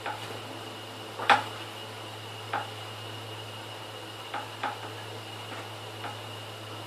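Dishes clinking and knocking now and then as they are handled during washing up, about seven light knocks with the loudest a little over a second in, over a steady low hum.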